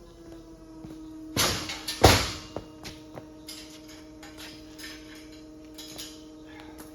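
Two loud knocks, about a second and a half and two seconds in, the second the louder, then scattered light clicks and taps, over a steady hum.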